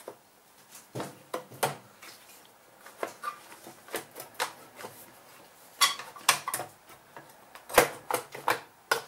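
Irregular sharp clicks and knocks, a dozen or so in loose clusters, of hard plastic and metal parts knocking together as a snowblower's recoil starter is worked back into place on its Briggs & Stratton engine.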